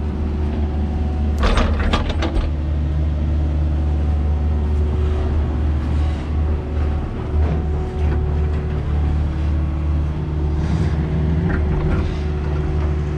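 Excavator diesel engine running steadily under load while it turns an auger bit drilling a hole in the ground. Several sharp knocks and clanks come about two seconds in, with a few lighter ones later.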